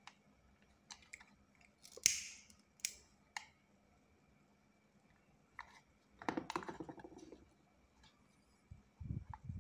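White PVC pipe pieces and a marker pen being handled: scattered light plastic clicks and taps, a short scraping hiss about two seconds in, a longer stretch of rubbing and handling between about six and seven and a half seconds, and dull knocks near the end.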